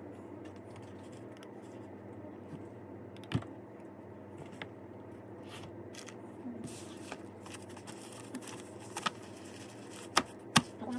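Steady room hum with scattered desk-work handling noises: light clicks and taps and the handling of paper sheets. A sharp knock comes about three seconds in, and two sharp clicks half a second apart come near the end.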